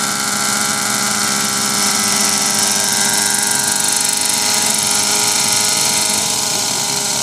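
Nitro-powered radio-controlled model helicopter running steadily at hover: the high whine of its glow engine together with the whir of the spinning rotor blades. It gets a little louder about two seconds in.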